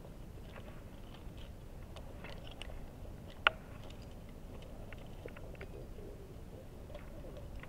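Scattered small clicks and scrapes of a rock climber's gear and rope handling, with one sharp click about three and a half seconds in, over a low steady rumble on the helmet camera's microphone.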